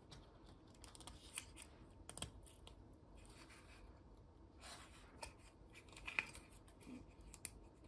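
Very faint, scattered small clicks and light scraping of plastic parts being handled, as a magnifier is slid into a plastic frame; the loudest click comes a little after six seconds in.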